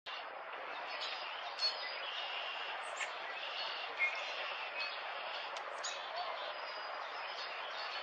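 Small birds chirping in short, high calls over a steady background hiss, with two sharper chirps about one and a half and four seconds in.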